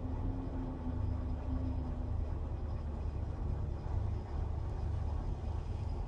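KrAZ six-wheel-drive truck's diesel engine running under load as it tows a trolleybus through deep snow, a steady low rumble.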